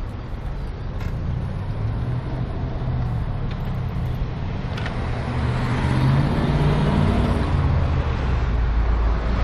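Street traffic at a city intersection: motor vehicle engines running, with a low engine drone building up about halfway through.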